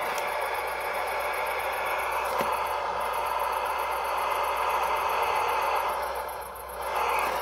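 RC model fire truck crawling over a row of round wooden logs: a steady whirring of its drive motor and gearbox under load, with the wheels rattling and scraping on the logs. It drops off briefly near the end, then picks up again.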